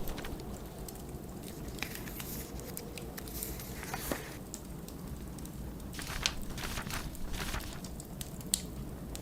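Wood fire crackling with scattered sharp pops, over the steady low rumble of blizzard wind.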